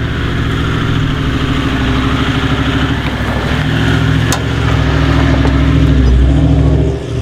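Toyota LandCruiser Troopcarrier engine pulling slowly over a rough dirt track, growing louder as the vehicle comes close and passes. A single sharp click sounds a little after four seconds in.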